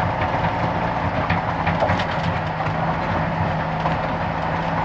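Dump truck's diesel engine running steadily as the truck drives slowly over a rough gravel pit road, with frequent short rattles and knocks from the truck over the bumps.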